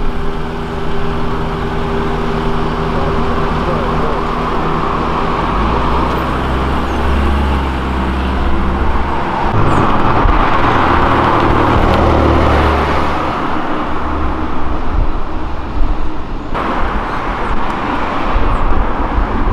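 Cars driving past on a city street. At the start a passing car's engine runs at a steady pitch; from about six seconds in, a deeper engine rumble and rising road and tyre noise come from cars going by, swelling in the middle before easing off.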